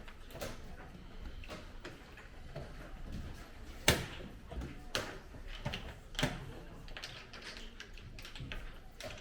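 Scattered sharp clicks and knocks of play at a checkers board: pieces set down and the game clock tapped. The loudest knock comes about four seconds in, with smaller ones about a second and two seconds later.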